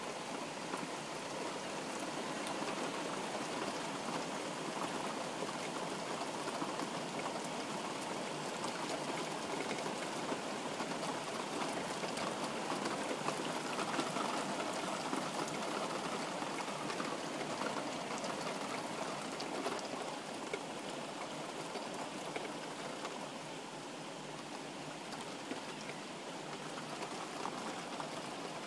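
Heavy rain falling steadily on a tiled roof: a dense, even hiss of countless small drop impacts, easing a little about three quarters of the way through.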